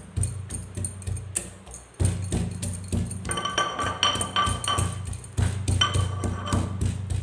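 Pestle pounding whole spices, ginger and giloy stem in a mortar (khalbatta): rapid repeated strikes, several a second. Through the middle of the run the strikes ring with a clear tone.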